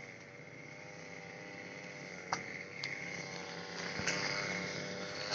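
Engine-powered grass trimmer (brush cutter) running at a steady drone, with a few short sharp ticks.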